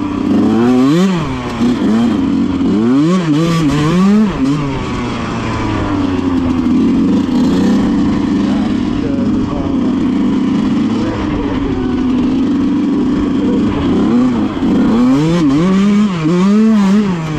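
Yamaha YZ125's two-stroke single-cylinder engine revving up and down repeatedly while the dirt bike is ridden. For several seconds in the middle it holds a steady high rev, then it rises and falls again near the end.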